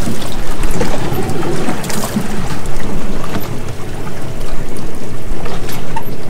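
Boat under way at sea: a loud, steady rush of engine, water and wind buffeting the microphone.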